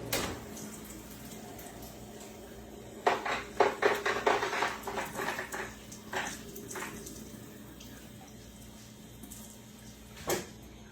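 Steamed spinach being squeezed by hand in paper napkins, its water splashing and trickling into a sink in a run of short bursts from about three to seven seconds in.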